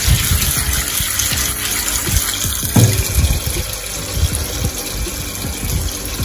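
Kitchen tap water running steadily while dried cow peas are rinsed, with a light knock about three seconds in.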